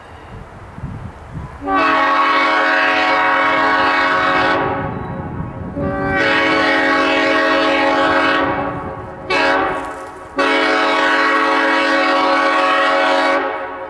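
Southern Railway EMD E8A diesel locomotive's multi-chime air horn sounding a chord in four blasts, long, long, short, long: the standard signal for a road grade crossing.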